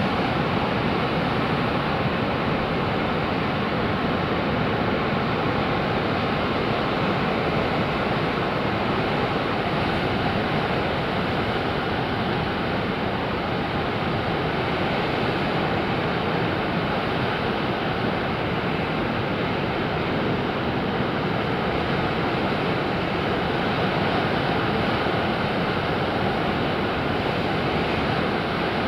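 Heavy Pacific surf breaking over coastal rocks: an unbroken, steady wash of noise, muffled by tape over the microphone.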